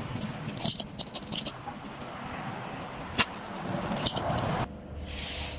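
Sharp clicks and light knocks, about seven in all, from small hard parts being handled as a cordless-drill lithium battery pack is taken apart. A steady rushing noise lies underneath and cuts off suddenly near the end.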